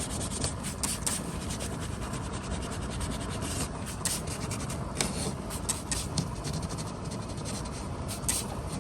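Sanding cured fiberglass putty on a repaired plastic bumper by hand: irregular rubbing, scratching strokes that come quickly one after another.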